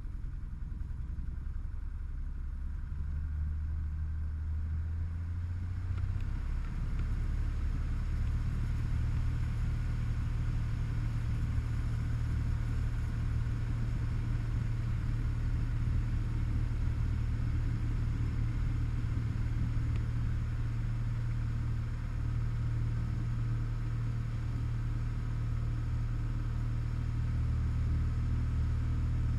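Light aircraft's piston engine and propeller heard from inside the cabin, coming up in power over the first six seconds or so, then running steadily at takeoff power through the takeoff roll and lift-off of a touch-and-go.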